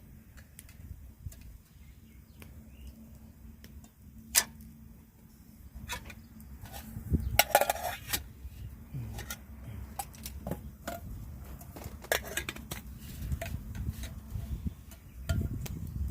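Camp gear being handled: scattered clinks and knocks, with one sharp knock about four seconds in and busier clusters of clatter in the middle and again later.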